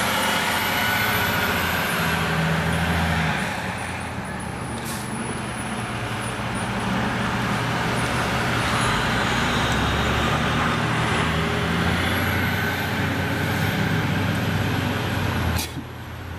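Heavy road vehicles running and passing, a steady low engine sound over road noise that eases off about four seconds in, swells again, and cuts off suddenly near the end.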